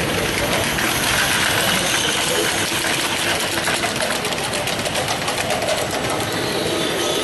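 Gauge 3 live steam model train running past, making a fast, even clatter of wheels on the track and its joints. The clatter is busiest about three to six seconds in, as the tinplate coaches pass close by.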